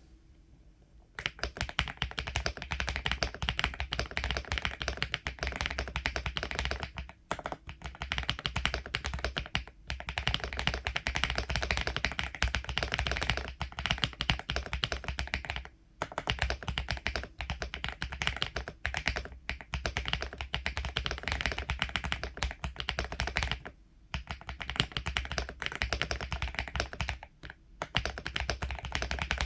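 Continuous typing on an Aula F75 mechanical keyboard with Gateron Mountain Top linear switches: fast runs of key strikes that start about a second in, broken by several short pauses.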